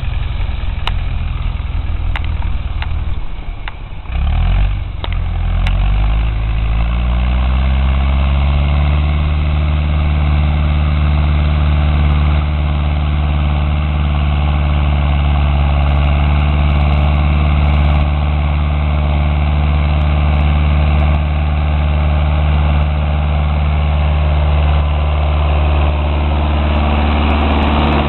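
Ursus C-360 tractor's four-cylinder diesel engine running. About four seconds in it dips briefly, then its pitch climbs as it revs up and it holds steady at the higher speed. A few light clicks come early on.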